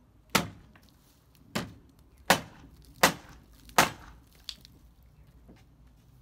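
Hammer striking a rotten wooden timber on an old railway carriage: five hard blows about a second apart, then a lighter knock.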